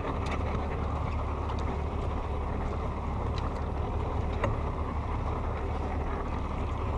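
Steady wind noise on the microphone and choppy water against a small boat's hull, with a few faint clicks.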